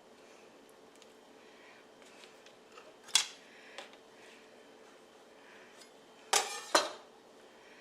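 Kitchen utensils knocking against dishes: a sharp clink about three seconds in, a fainter one just after, and a louder short clatter with a final clink near the end.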